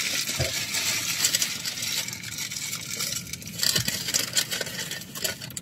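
Fast-food packaging crinkling and rustling in irregular crackly flurries, louder about a second in and again near four seconds, as food is unwrapped and handled.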